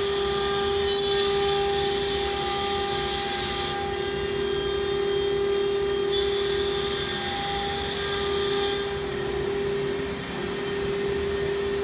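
CNC router's 9 kW spindle whining steadily as it cuts a wood panel, with a higher hiss that comes and goes twice.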